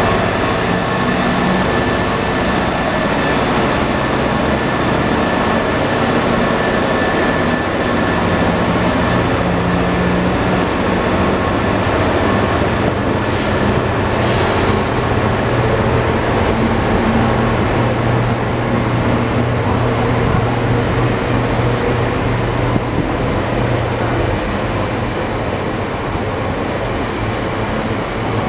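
Class 66 diesel freight locomotive running past, followed by a long train of covered hopper wagons rolling by with a steady rumble of wheels on rail.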